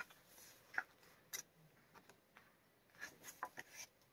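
Pages of a glossy album photobook being handled and turned: a few short, soft paper rustles and taps, one about a second in and a small cluster in the last second.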